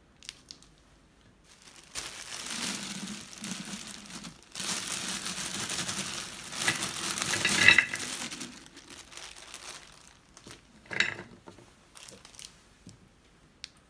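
Plastic bag crinkling as frozen ume plums are tipped out of it into a large glass jar, the fruit tumbling in with a few sharp knocks; a shorter rustle of the bag follows about eleven seconds in.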